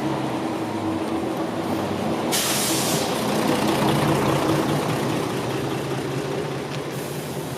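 Diesel city bus engine running as a route bus drives past close by, louder as it passes and then easing off. Two short, sharp hisses of released air from the buses' air brakes, about two seconds in and near the end.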